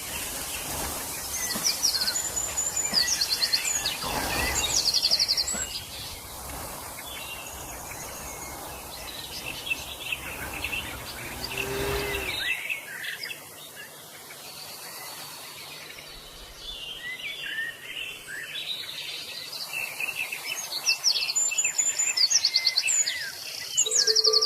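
Small birds chirping, with many short high calls and rapid buzzy trills overlapping. A low rumbling noise underlies the first half and stops suddenly about halfway through.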